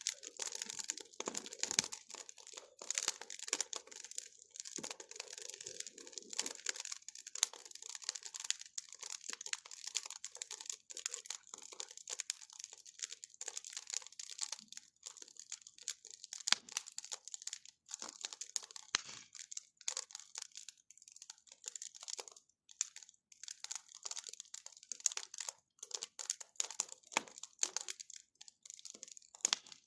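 Bonfire crackling, with a dense, irregular run of small pops and snaps.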